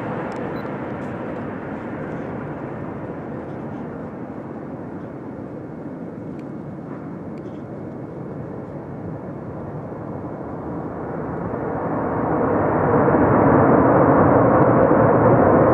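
Jet engine noise of a Boeing 737-800 with its CFM56 engines, landing and rolling out: a steady rush that fades over the first several seconds, then swells to its loudest about twelve seconds in.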